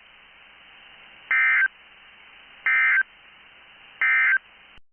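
Emergency Alert System end-of-message signal: three short, identical bursts of SAME digital data tones, about a second apart, over a faint hiss, marking the close of the broadcast alert.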